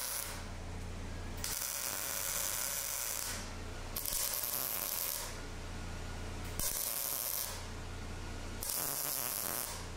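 MIG welder tack-welding expanded metal into a sheet-metal firebox: about four short runs of arc crackle and sizzle, each one to two seconds long, starting and stopping sharply, over a steady low hum from the welding machine.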